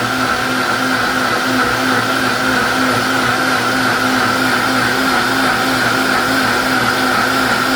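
Electric blender motor running steadily, pulping whole seeded grapes into juice, with a steady high whine over a lower hum.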